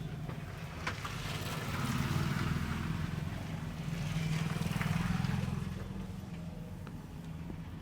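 A motor vehicle engine running close by, growing louder from about two seconds in and fading again after about five seconds, over a steady low traffic hum. Two sharp clicks about a second in.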